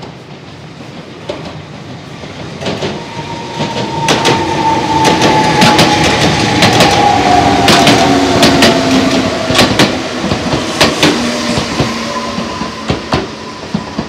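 Enoden electric train passing close by and then drawing away: wheels clacking over rail joints in a run of sharp clicks, with a whining tone that slowly drops in pitch. It builds to a loud peak about midway and then fades.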